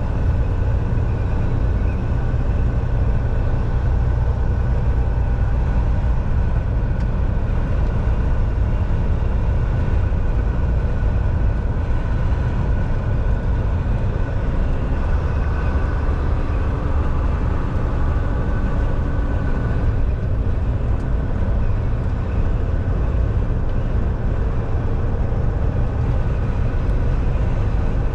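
Volvo semi truck driving on the highway: a steady, loud low rumble of its diesel engine and tyre and road noise, with faint steady whining tones above it.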